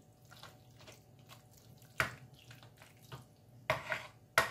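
Creamy pasta being stirred and turned in a pan: wet squelching with a few sharp knocks of the utensil against the pan, the loudest about two seconds in and a cluster near the end.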